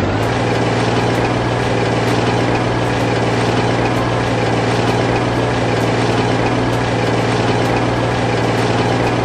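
An engine running steadily at one unchanging pitch, a low hum over a noisy wash.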